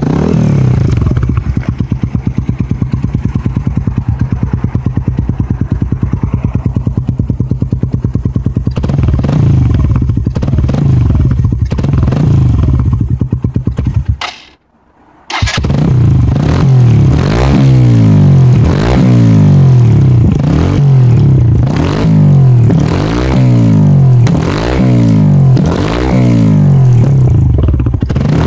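Sinnis Apache 125 motorcycle running loud through a Lextek carbon-tip exhaust with the baffle removed. It idles steadily with a few light throttle blips, breaks off for about a second halfway through, then is revved over and over, rising and falling about every second and a half.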